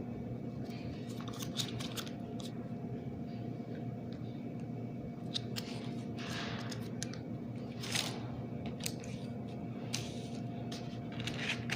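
Scattered small rustles and clicks as a sauce packet is opened and the barbecue sauce is put on a piece of fried chicken, over a steady low hum.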